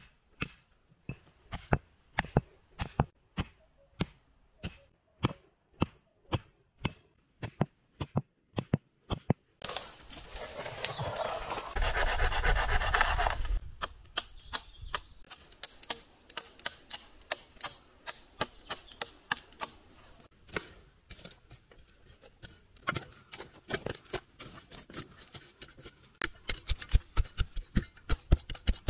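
Axe chopping wood in steady strokes, about two a second, each with a short metallic ring. Then comes a few seconds of rustling and cracking, followed by quicker, lighter knocks that grow denser near the end.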